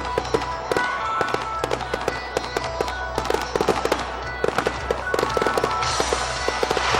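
A rapid, continuous volley of fireworks bursting and crackling, many sharp bangs a second, over music playing with the display.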